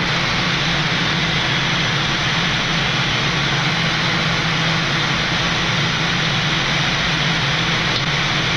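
Boeing 787 flight-deck noise in flight on approach: a steady rush of airflow and air conditioning with a constant low hum underneath.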